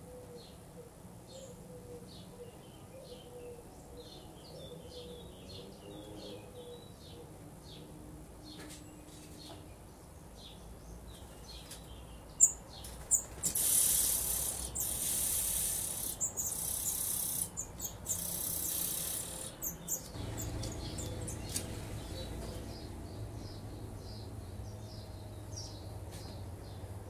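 Songbird nestlings begging for food as a parent arrives at the nest: a loud, hissy, high-pitched chorus in two spells lasting several seconds, just after a single sharp knock. Before it only faint scattered chirps are heard, and after it a low steady hum joins the faint chirping.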